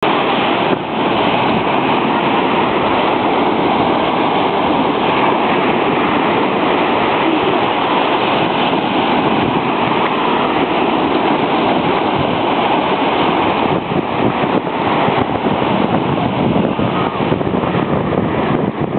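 Ocean surf washing steadily onto a beach, with wind buffeting the microphone; the gusts flutter more near the end.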